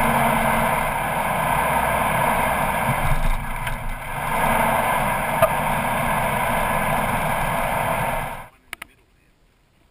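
Four-wheel drive vehicle driving along a sandy track, picked up by a camera mounted outside on its bonnet: a steady rush of engine, tyre and wind noise that stops abruptly about eight and a half seconds in.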